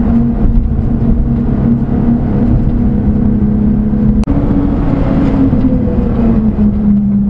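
1992 Daihatsu Hijet Climber mini-truck's 660cc three-cylinder engine running steadily at road speed, heard inside the cab over road rumble. Its pitch eases down slightly in the second half, and there is a single sharp click a little past halfway.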